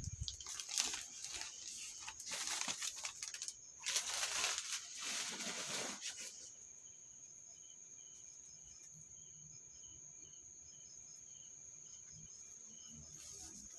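Paper and plastic plant wrapping rustling and crinkling in bursts as potted plants are unwrapped and handled in a cardboard box, stopping about six seconds in. After that there is only a faint steady high whine with soft chirps at a regular beat.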